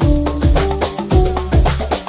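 Upbeat instrumental music with a steady beat: deep drum hits about twice a second under held keyboard-like notes, with no singing.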